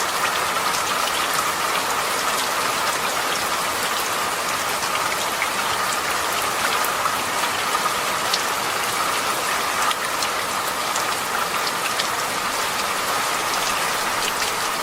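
Steady rain falling on a surface, an even hiss with scattered sharp drop ticks.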